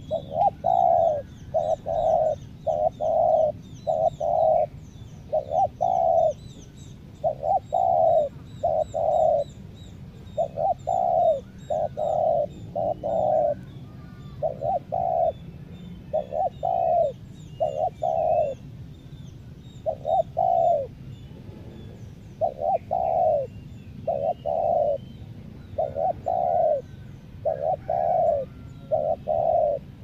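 Spotted dove cooing loudly and persistently, its low coos coming in quick runs of two to four notes over and over: the calling of a decoy dove used to lure wild spotted doves. Faint chirps from small birds sound in the background.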